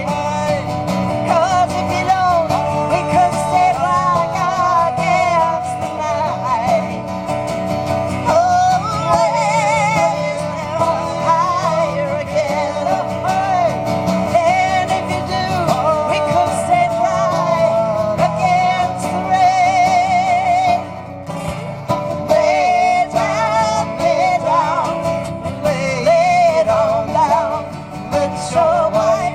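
Live song: a woman's voice singing with a wavering vibrato over a guitar accompaniment, the music dropping back briefly about twenty seconds in.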